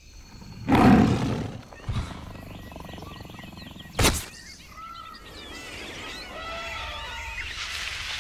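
Jungle sound effects: a big cat roars loudly about a second in and a sharp crack comes at about four seconds. Birds then chirp and call over a steady low rumble.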